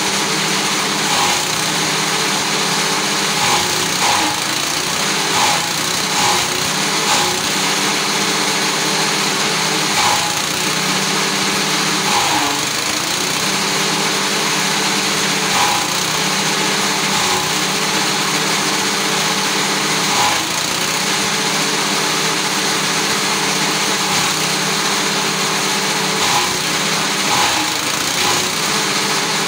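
Small petrol engine running a forage chopper as corn stalks are fed in. The engine note dips briefly under load several times and recovers, with short chopping sounds from the cutter about once a second.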